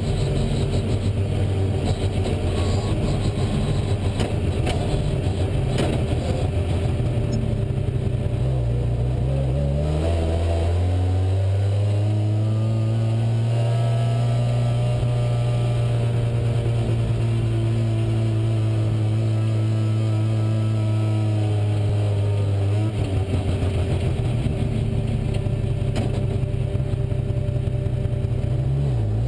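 Rally car's engine heard from inside the cabin while driving hard: the note is rough and uneven at first, climbs under acceleration about ten seconds in and holds smooth and steady for about ten seconds, then turns choppy again, dipping and picking up near the end.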